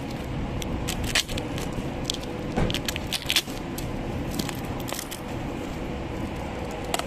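Taped cardboard packing being cut, pried and ripped open with a hand tool: irregular tearing, scraping and sharp clicks, over a steady background hum.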